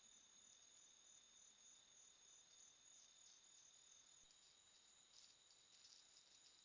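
Faint night chorus of crickets trilling steadily at two high pitches, with rhythmic pulsing chirps joining about four seconds in.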